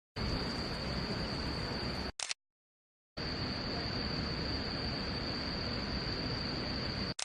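Steady outdoor background noise with a continuous high-pitched insect trill, broken off abruptly by about a second of dead silence two seconds in, then resuming.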